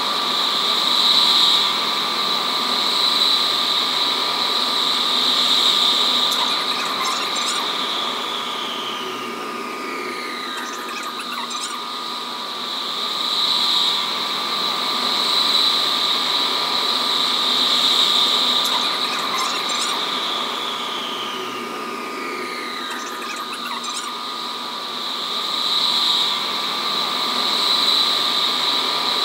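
Electric metro train running through a tunnel: a steady high-pitched electric whine from the traction equipment that swells and fades slowly, with a tone that glides down in pitch twice.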